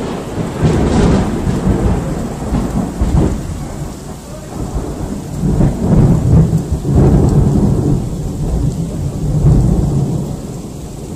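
Loud close thunder rolling in a long rumble that swells in several waves and fades near the end, with steady rain falling throughout.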